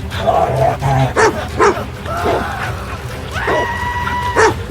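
A large dog barking several times over background music.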